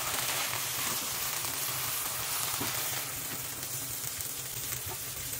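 Steady sizzling hiss from a pot of coconut rice whose cooking water has boiled down, stirred with a wooden spatula on the stove.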